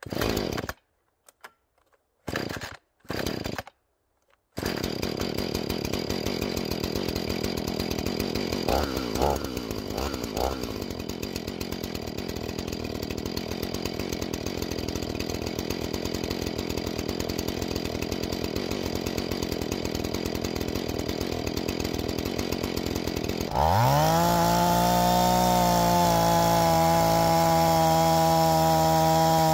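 Husqvarna 445 two-stroke chainsaw with a ripping chain: after a few short sounds, it runs at idle with a fast, even putter from about five seconds in and blips briefly around ten seconds. Near the end it revs sharply up to a loud, steady high-pitched full-throttle whine as the rip cut begins.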